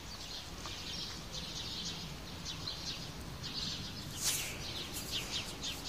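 Small birds chirping repeatedly in quick short calls, over a steady low hum of outdoor background noise.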